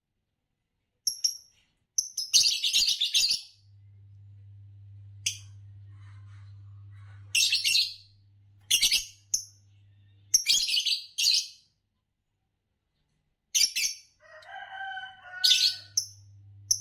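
Green Fischer's lovebirds chirping in short bursts of shrill, high chirps with pauses between, and a lower warbling call near the end. A steady low hum runs under much of it.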